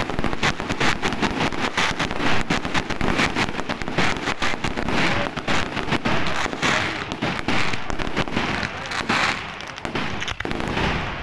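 Aerial fireworks display: a dense, continuous barrage of shell bursts and crackling reports, the bangs following one another rapidly and overlapping, thinning a little near the end.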